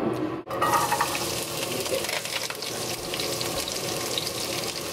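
Diced onion, celery and carrots sizzling in bacon drippings in a frying pan: a steady hiss with fine crackles, starting about half a second in after a brief break.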